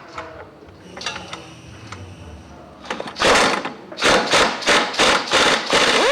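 A series of loud hammer blows on steel, about eight strikes at roughly three a second, beginning about halfway through. The first half holds only light clinks of tools.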